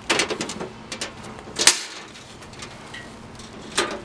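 Plastic packaging film crinkling and crackling as it is peeled off a camping stove's burners and bunched in the hand, in irregular short crackles with a sharp one about halfway through.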